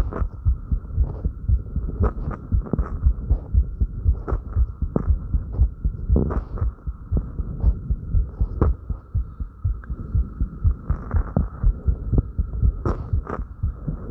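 Rapid human heartbeat picked up close, an even run of quick low thumps, raised by light exercise. A steady high hum lies underneath, and brief scuffs from body movement break in now and then.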